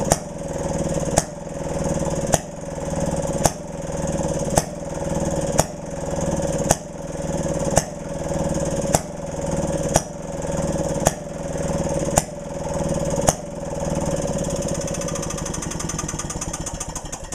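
1928 Maytag Model 92 single-cylinder two-stroke hit-and-miss engine running, with a sharp bang about once a second over a steady fast clatter. A little past two-thirds of the way in, the bangs stop and it runs evenly.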